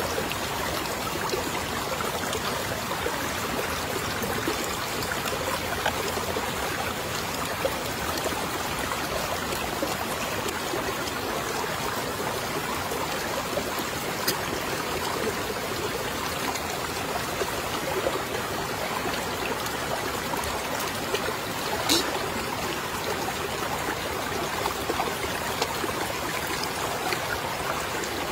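Small stream flowing steadily, a constant trickling rush of water. A few faint ticks sit on top, with one sharp click about three quarters of the way through.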